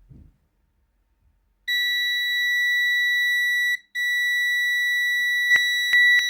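Multimeter continuity beeper sounding a steady high-pitched beep that starts about two seconds in, drops out for a moment near the middle and comes back, showing the probes have found a connection between pin 12 and the point on the circuit board. A few sharp clicks of the probe tips near the end.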